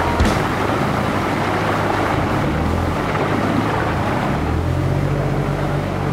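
Engine of an off-road 4x4 running at low revs as it crawls over river rocks, its note growing stronger about four seconds in, over the rush of stream water.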